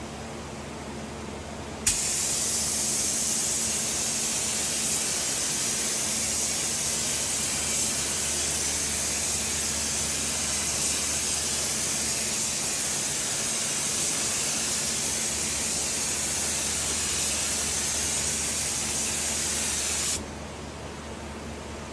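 Paint spray gun hissing steadily on compressed air, triggered on with a click about two seconds in and held for some eighteen seconds before it cuts off. A low steady hum from the booth's ventilation fans runs underneath.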